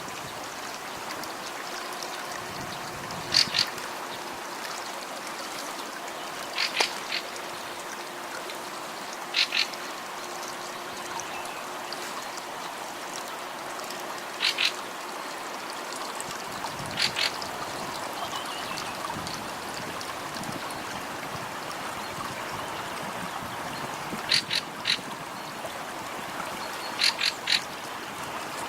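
Short, high animal calls in quick groups of two or three, repeated every few seconds over a steady rushing of floodwater.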